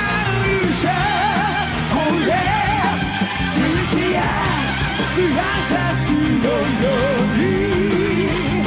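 Live rock music: male vocals sung with a wavering vibrato over a full band.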